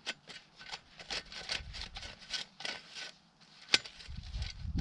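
Ice auger boring into lake ice: irregular crunching and scraping as the blades cut, with a low rumble building near the end.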